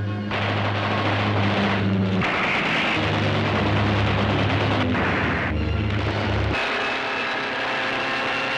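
Air-raid battle effects on an old film soundtrack: a dense rumbling, crackling din over low held notes of dramatic music, which shift abruptly every second or two. Near the end the low notes drop away and a steady aircraft-engine drone with a thin high whine takes over.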